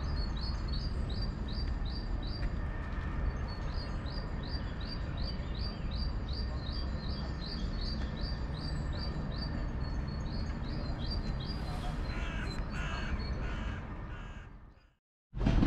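A bird calling a fast, steady series of short high chirps, about three a second, over a low background rumble. A few lower, harsher calls come in near the end before the sound fades out.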